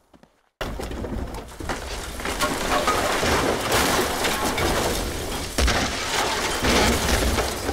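Wooden water tower collapsing: timber cracking and splintering and debris crashing down over a low rumble. It starts suddenly about half a second in, with heavier thuds near the end.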